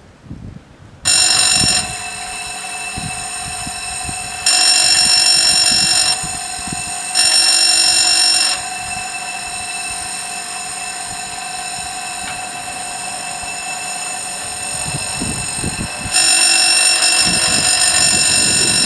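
Level crossing warning bells ringing continuously, starting about a second in, swelling louder in several stretches. The crossing is activated, warning of an approaching train as the barriers lower.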